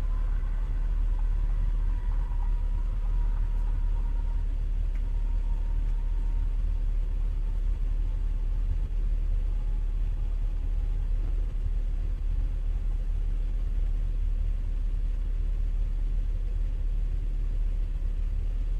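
Lockheed U-2 spy plane's jet engine heard from afar as a steady low rumble, with a faint whine that slowly falls in pitch and fades over the first ten seconds or so.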